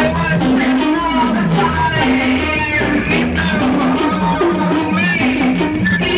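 Loud live music with a repeating bass line and melodic notes layered over it.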